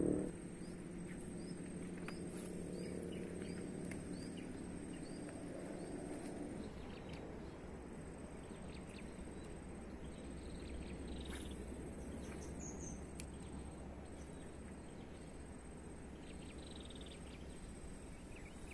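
Outdoor bird and insect ambience: a steady, high-pitched insect drone, and a bird giving a series of short, evenly spaced chirps, about two a second, in the first five seconds or so, over a low background rumble.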